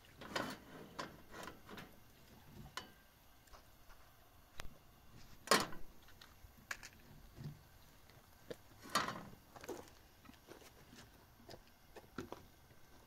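Scattered light knocks and clicks at an uneven pace, with two louder knocks about five and a half and nine seconds in.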